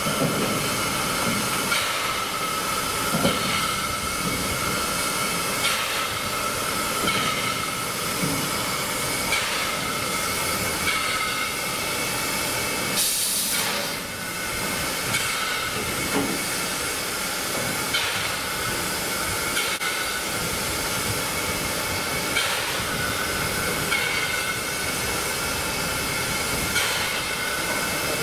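NSWGR 30 class 4-6-0 steam locomotive hissing steadily with a constant high whine, with short knocks about every one and a half to two seconds. About thirteen seconds in comes a louder burst of escaping steam.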